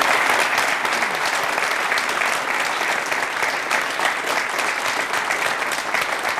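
Studio audience applauding: many hands clapping in a dense, steady patter.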